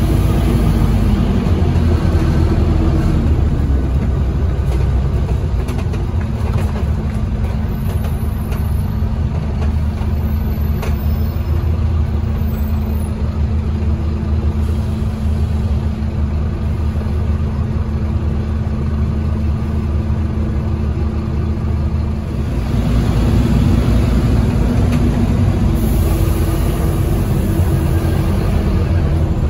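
Scania OmniCity single-deck bus's diesel engine running, heard from inside the passenger saloon: a steady low drone that grows louder about three-quarters of the way through.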